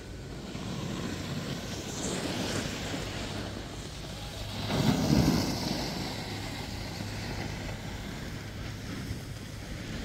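Wind noise on the microphone over the hiss of a snowboard's edge scraping and sliding across groomed, packed snow, swelling to its loudest for about a second midway as the board passes close.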